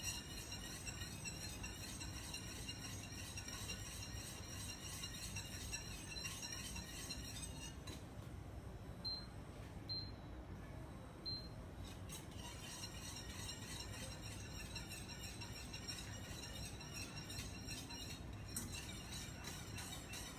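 Wire whisk stirring warming milk and cream in a stainless steel saucepan: a steady, fast run of light metallic clinks. The whisking stops about eight seconds in, the cooktop's touch controls beep three times, and the whisking resumes about twelve seconds in.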